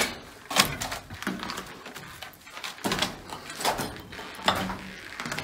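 Footsteps over a rubble-strewn attic floor: a string of short, uneven knocks and scuffs, about one or two a second.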